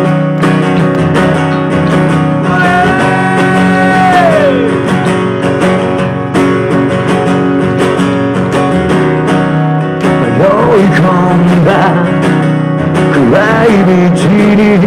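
Strummed acoustic guitar and electric bass playing a song live, with a voice holding one long note a few seconds in that slides down at its end, and more singing in the last few seconds.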